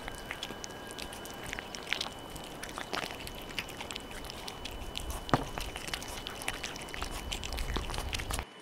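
Two cats eating cooked carp off a plastic plate close to the microphone: irregular wet chewing, licking and smacking clicks.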